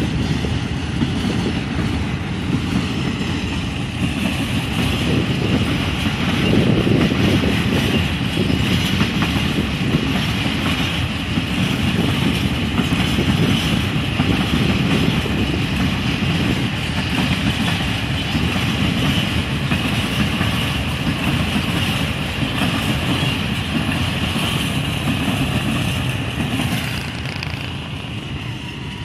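Freight train of phosphate hopper wagons rolling past, a steady rumble of wheels on the rails with a higher hiss above it. The sound fades over the last few seconds as the end of the train draws away.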